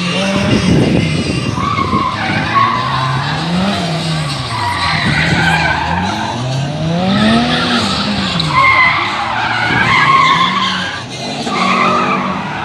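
Citroen Saxo VTS rally car driven hard through a cone slalom: the engine revs up and falls back again and again as it is driven through the turns, while the tyres squeal repeatedly.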